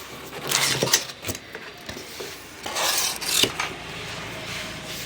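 Packaging being handled during an unboxing: two spells of rustling with sharp clicks and knocks, about half a second in and again about three seconds in.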